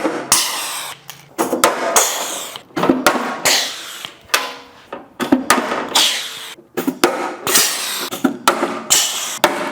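Rivet gun setting rivets through aluminum panels: a series of short, loud bursts, about a dozen, one after another.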